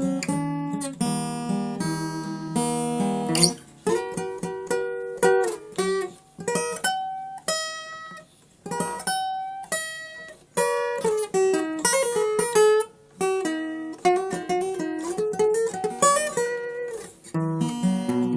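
Solo acoustic guitar: strummed chords, then a picked single-note melody in short phrases with brief gaps between them, then strummed chords again near the end.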